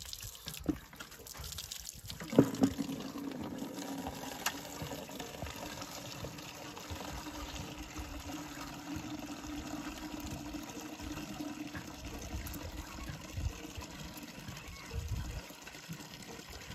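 Water from a hand pump's spout pouring steadily into a bucket as the pump handle is worked. A few sharp knocks come in the first few seconds, the loudest about two seconds in.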